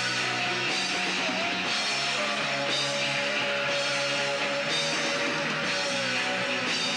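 Live shoegaze band playing: a dense wash of electric guitars and drum kit, with a cymbal hit about once a second. A long held high note slides down in pitch within the first two seconds, then holds.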